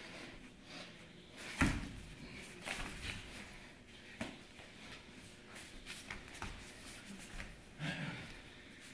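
Two grapplers rolling on foam puzzle mats: bodies and bare feet scuffing and rubbing on the mat, with several dull knocks, the loudest about a second and a half in.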